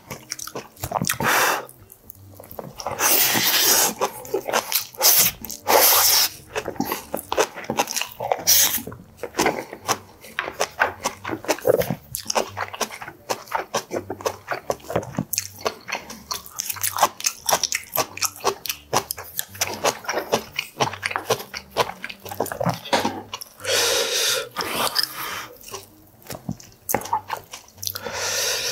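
Close-miked chewing of boiled pork belly (bossam) with kimchi and rice: many quick, wet mouth clicks throughout, with several louder, longer stretches.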